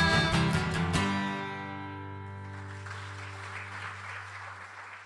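Two acoustic guitars play a few quick strums and end on a final chord about a second in, which rings out and fades. Faint applause starts about two and a half seconds in.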